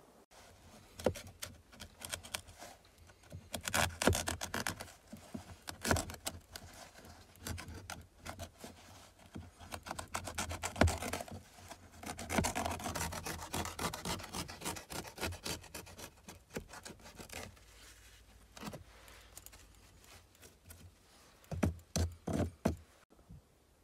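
A knife blade cutting and sawing through burlap stretched over a log wall, in irregular rasping, scraping strokes. The strokes are busiest through the first two-thirds, thin out, then come in a short quick cluster near the end.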